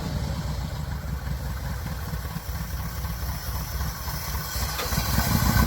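A 1966 Chevy C20 pickup's 327 V8 idling unevenly, missing on some cylinders: it is running on about five cylinders after sitting for some 30 years and is due a tune-up. It grows louder near the end.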